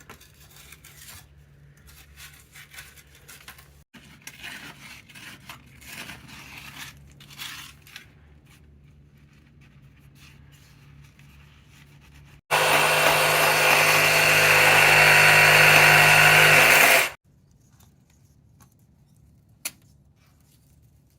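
Scraping and handling noises, then a power tool runs loudly for about four and a half seconds and stops abruptly.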